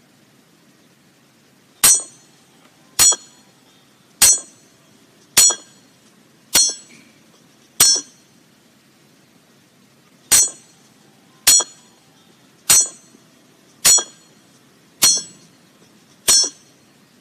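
Hammer striking a large iron nail, a sharp metallic clang with a short ring on each blow, about once a second: twelve blows in two runs of six with a brief pause between, the sound of nails being driven.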